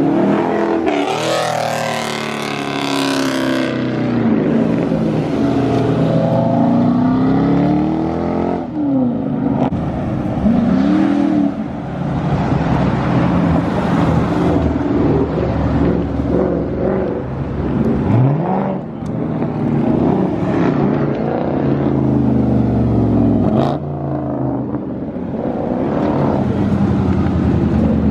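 Dodge Charger Scat Pack's 392 (6.4-litre) V8 engine and exhaust running, its pitch rising and falling repeatedly as the revs change.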